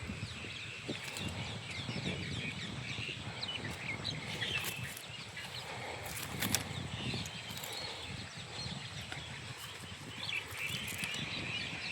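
Many small birds chirping in quick, overlapping calls, over a low rumble, with a few sharp clicks, one loud one about six and a half seconds in.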